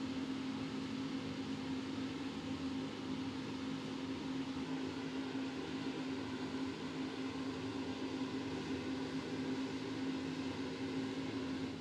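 Steady mechanical hum of running kitchen equipment: one low, even tone over a broad hiss.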